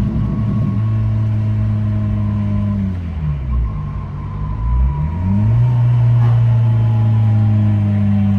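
The turbocharged 1.5-litre four-cylinder of an 11th-gen Honda Civic, with an Axion inlet pipe and RV6 turbo, heard from inside the car while driving. Its steady drone drops in pitch about three seconds in, climbs back about two seconds later, then holds steady.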